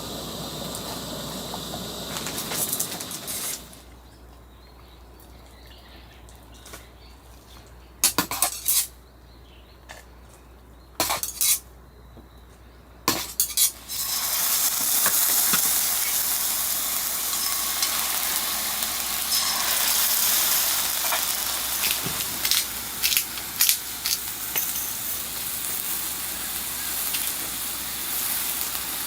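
Wood fire sizzling and crackling in a steady hiss, with a quieter stretch in the first half broken by a few sharp clicks and knocks.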